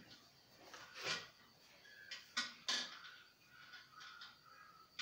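A few short knocks and clicks from a corded electric drill being handled against a wall shelf bracket, two of them close together near the middle; the drill's motor is not running.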